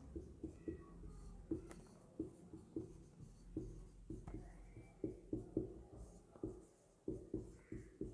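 Marker pen writing on a whiteboard: a faint run of short, irregular strokes and taps as letters are written.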